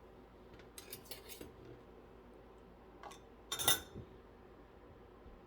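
Hard objects clinking: a few light clicks about a second in, then a louder clatter with a short ring about three and a half seconds in.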